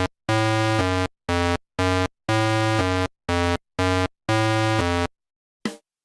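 Background music: a synthesizer melody of short, sharply cut notes separated by brief silences, some notes stepping to a new pitch partway through. The notes stop about five seconds in, followed by a short silence.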